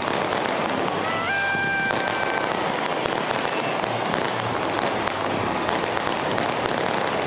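Fireworks going off without a break, a dense mix of crackles and bangs from many shells bursting. About a second in, a held tone steps up in pitch and holds for about a second and a half before fading out.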